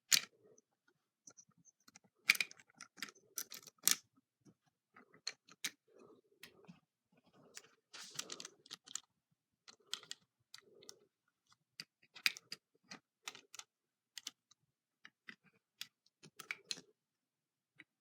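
Irregular sharp clicks and taps of automatic (switchblade) knives being handled, with a few louder snaps among them.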